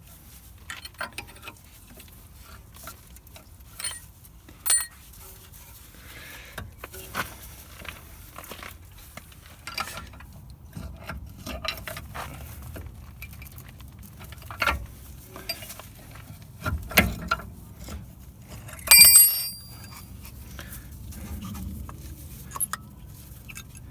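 Metal clicks and knocks from a front brake caliper being worked off its bracket and handled, with one loud, ringing metallic clink late on.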